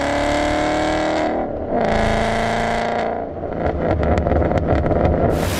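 A car engine accelerating with its pitch slowly climbing, a brief break about a second and a half in, then more engine tone. It is followed by a run of sharp crackles and pops, and near the end a sudden steady hiss like static starts.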